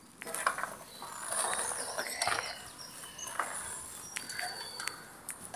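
Footsteps crunching and scraping on loose rubble and grit on crumbling stone steps, in uneven bursts.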